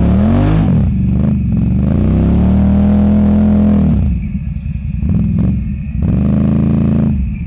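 Can-Am ATV engine revved hard in three bursts, each rising and then falling away, the middle one held high for a couple of seconds. The quad is stuck nose-up in deep mud, its wheels spinning as the rider standing beside it tries to drive it out.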